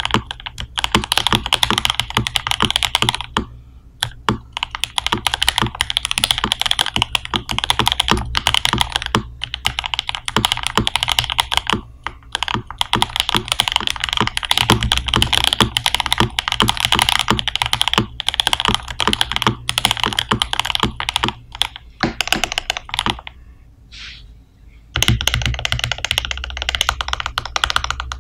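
Typing on a Rama M-65B custom mechanical keyboard with lubed JWK Noir Rose (Alpaca) linear switches, GMK keycaps and an aluminium plate. A steady run of quick keystrokes, with a few short pauses and a quieter stretch near the end.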